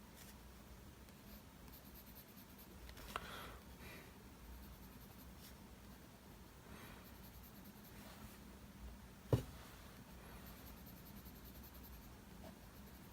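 Faint mechanical-pencil lead scratching on paper in short strokes. A single sharp knock comes about nine seconds in.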